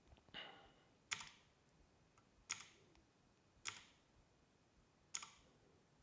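Cherry MX Blue clicky switches on a Drop ALT mechanical keyboard, pressed one key at a time: four sharp single clicks spaced a little over a second apart, with a softer, duller sound just before the first.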